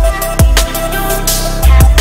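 Electronic dance music with a heavy kick-drum beat. The deep bass drops out for about a second in the middle, a rising hiss builds, and the full beat comes back near the end.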